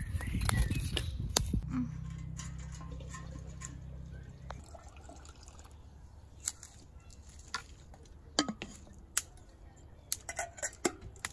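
Pots and thin wooden boards being handled by a wood fire: a burst of rustling and clatter at the start, then scattered light knocks and clicks. A low steady hum runs for the first few seconds and fades.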